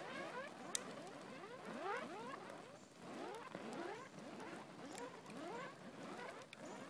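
Burning plastic on a flaming stick giving off a stream of short, squeaky rising whistles, several a second and overlapping, over a faint hiss, with a sharp crackle about a second in.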